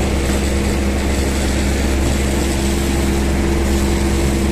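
Room air cooler's fan motor running with a steady hum: a constant low drone with a few steady tones over it.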